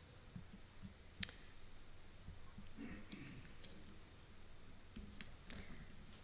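A handful of scattered clicks from a laptop being operated, one sharp click about a second in and fainter ones later, over a low room hum.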